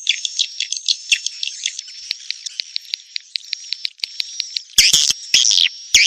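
Swiftlet call recording of juvenile swiftlets: rapid high chirps and clicking trills over a steady high whistle-like tone, with a few loud, harsh squawks from about five seconds in.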